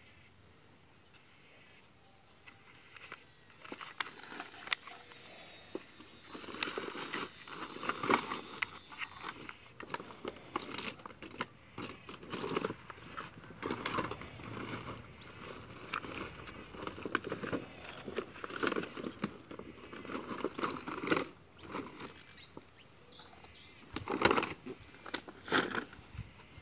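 Irregular rustling and light clicks of a hard plastic toy tank being turned over and handled in the hand close to the microphone.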